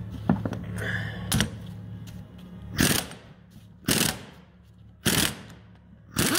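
Impact wrench hammering on the 32 mm output-flange nut of an Alfa Romeo 5-speed gearbox to break it loose, in four short bursts about a second apart, with a few lighter clicks before them.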